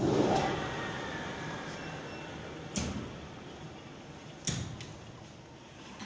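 A sudden rush of seed pouring into a batch seed treater, loudest at the start and tailing off over a few seconds, with two sharp knocks along the way.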